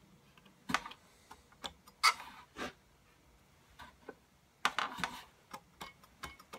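Scattered metallic clicks and clunks, the loudest about two seconds in and a cluster near five seconds, as hands adjust a Power Fist bench-mounted chainsaw chain grinder and its clamped chain with the motor off.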